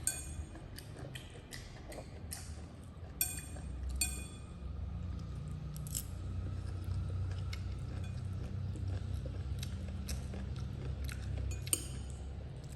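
Baby monkey eating: irregular sharp clicks and clinks, several close together in the first few seconds and again near the end, over a steady low hum.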